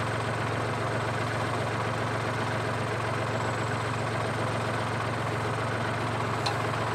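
Compact tractor engine idling steadily, with one light click near the end.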